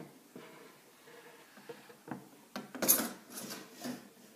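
Plastic pusher tool shoving the small metal baking pan through an Easy-Bake Oven's slot: a scraping rub that starts about two and a half seconds in and comes again shortly after, with a few light knocks before it.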